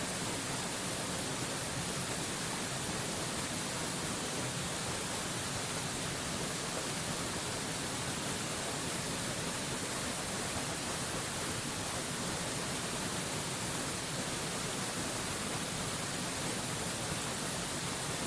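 Waterfall rushing, a steady even hiss of falling water that holds the same level throughout.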